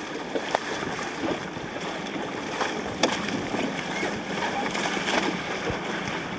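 Choppy water splashing and slapping against a small boat's hull, with a few sharp slaps standing out over a steady rush of water and wind.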